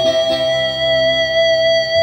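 Electric guitar, a Stratocaster-style guitar played through a board of effects pedals, holding one long sustained note with a changing low part beneath it.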